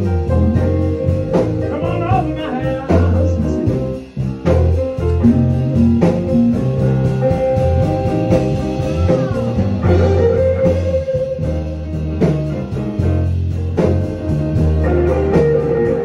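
Blues-style instrumental music: a bending, sliding guitar over a bass line and a slow, steady beat.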